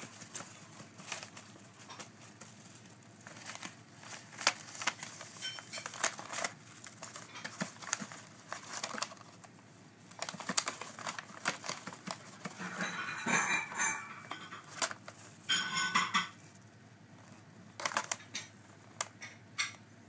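Newspaper and tissue bedding crinkling and rustling under moving African grey parrot chicks, with scattered light clicks and scratches. Two longer, louder bursts of rustling come about thirteen and sixteen seconds in.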